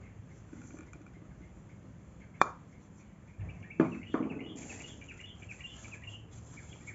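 A few sharp knocks of a plastic bowl and metal spoon against a plastic bucket while material is tipped in: one about two and a half seconds in, then two close together about a second later. Faint bird chirping runs behind from the middle on.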